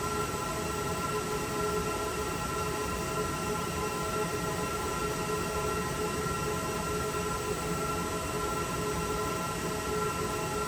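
Data center server equipment running: a steady hum and fan rush with several constant tones at different pitches, unchanging throughout.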